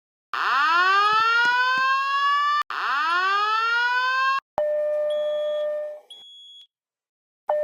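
Fire alarm system sounding during a maintenance test: two rising whoop tones of about two seconds each, then a steady alarm tone for about a second and a half. The steady tone starts again at the very end.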